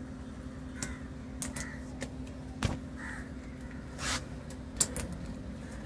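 Crows cawing a few times, with several sharp clicks and knocks in between and a short hiss about four seconds in, over a steady low hum.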